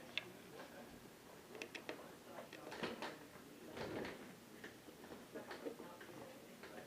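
Faint handling sounds of a Syma X8C quadcopter's plastic parts being worked at by hand: two sharp clicks at the start, then scattered small clicks and light scraping.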